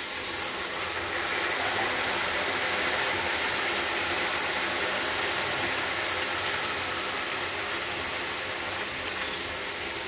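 Steam hissing out of the closed stone heater of a Grill'D Violet wood-fired sauna stove after a ladle of water hits stones at over 400 °C. A loud, even rush of steam that slowly eases.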